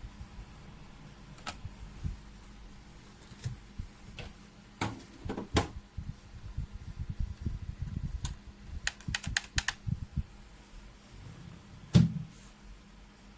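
Keys of a RedThunder K900 semi-mechanical keyboard being pressed, giving irregular clicks and short runs of rapid clicks, with one louder thud about twelve seconds in.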